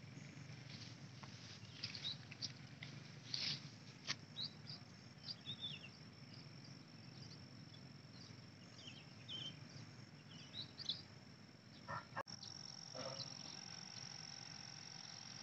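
Birds chirping in short, scattered calls over a faint low rumble. About twelve seconds in, the sound cuts, and a steady high insect drone like a cricket's takes over.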